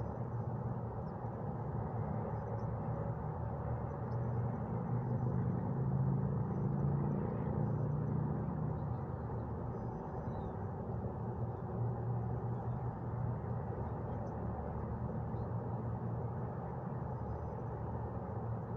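Steady low outdoor rumble of wind and distant traffic, swelling slightly a few seconds in.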